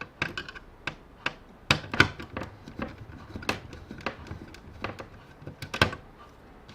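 Irregular sharp clicks and taps of plastic and circuit-board parts being handled as a keyboard's controller board is freed and lifted out during disassembly.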